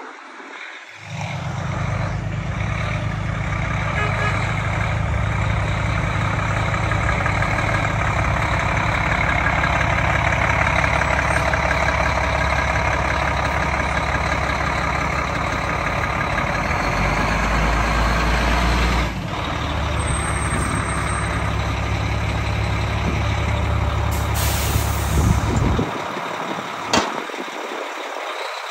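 Heavy diesel fire truck engine running steadily, stopping suddenly near the end, followed by a single sharp click.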